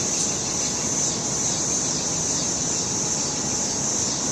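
A large flock of birds chattering in a steady, dense high-pitched din, with a low rumble of city traffic beneath.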